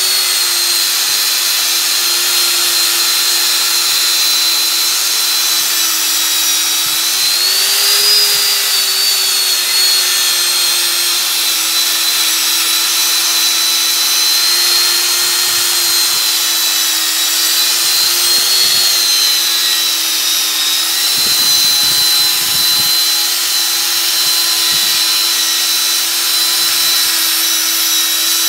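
Angle grinder running with a wire wheel against an old steel flat file: a steady high motor whine over the hiss of the wire bristles scouring the metal. The pitch lifts briefly about eight seconds in.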